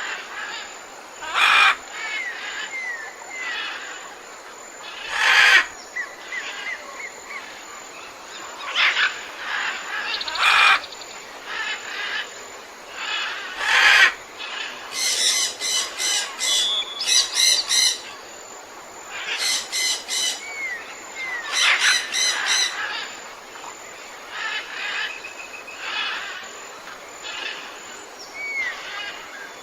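Several birds calling: loud harsh single calls every few seconds, two runs of rapid repeated chattering notes in the middle, and short soft down-slurred whistles between them.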